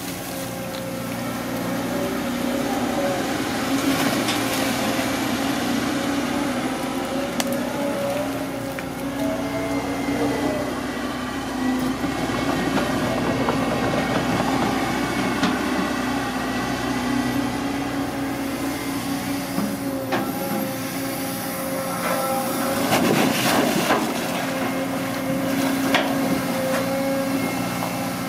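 Caterpillar long-reach excavator's diesel engine running steadily at work, with a few sharp knocks and a louder burst of noise a little before the end as the bucket scoops weeds and mud and dips into the canal water.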